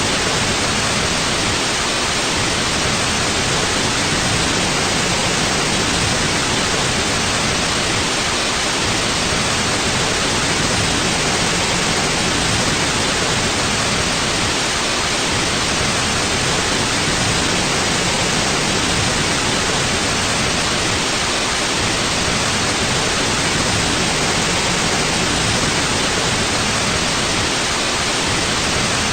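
Steady white-noise hiss for sleeping, unchanging throughout, with no pulses or pauses.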